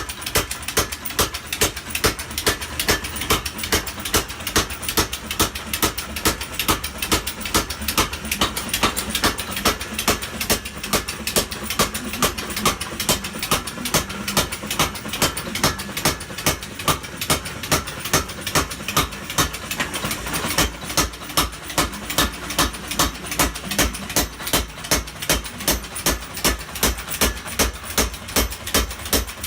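Custom-built power hammer running, its ram striking in a steady rhythm of about two blows a second over the machine's running noise. The blows are lighter in the middle and turn sharper and louder about two-thirds of the way in.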